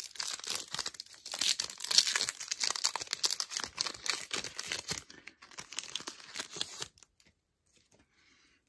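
Baseball card pack wrapper being torn open and crinkled by hand: a dense crackling that thins out about halfway through and stops shortly before the end.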